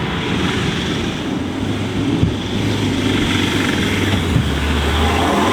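4x4 engine working hard under load as the vehicle climbs a soft sand hill, getting slightly louder as it comes on.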